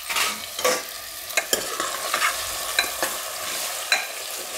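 Potato cubes sizzling in hot oil in a pressure cooker while a spoon stirs them, with several sharp clacks and scrapes of the spoon against the pot.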